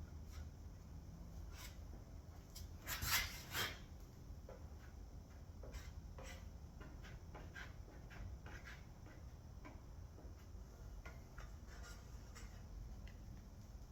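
Spatula spreading body filler over a car's metal guard: faint, irregular scraping strokes, with two louder scrapes about three seconds in.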